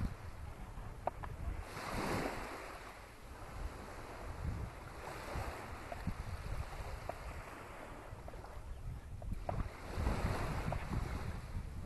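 Small waves breaking and washing up a sandy shore, with a surge of hiss about two seconds in and another near the end. Wind buffets the microphone throughout, a steady low rumble.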